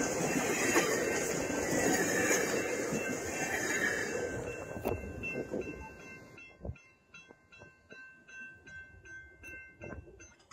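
GO Transit bilevel passenger coaches rolling past on the rails, their noise fading away over the first five or six seconds as the train's tail clears the crossing. Then a level-crossing warning bell rings in a regular, rapid pattern and stops shortly before the end.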